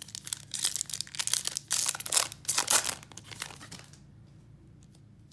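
Foil wrapper of a Topps baseball card pack being torn open and crinkled by hand, a dense crackle that stops about four seconds in.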